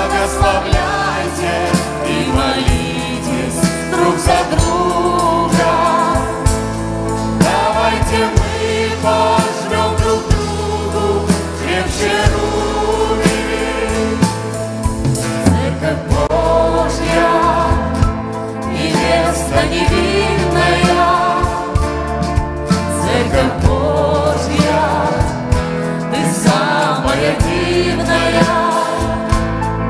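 Church worship band performing live: several voices sing a gospel-style worship song over a steady bass and a regular beat.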